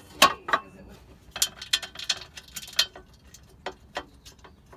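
Irregular light metal clicks and taps as bolts are fitted by hand to fasten a fan clutch to its fan blade.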